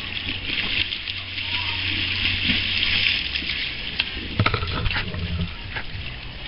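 Pool water splashing and fizzing in a steady hiss, heard with the microphone dipped under the water. A few sharp knocks and splashes come about four and a half seconds in.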